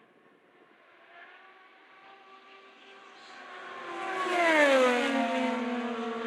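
An IndyCar's twin-turbo 2.2-litre V6 racing past at speed: the engine grows louder, peaks about four and a half seconds in with a sharp drop in pitch as it goes by, then carries on at a lower steady pitch as it moves away.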